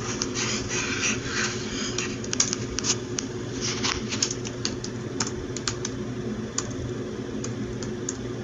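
Typing on a keyboard: quick runs of key clicks for the first few seconds, then slower, scattered keystrokes, over a steady low hum.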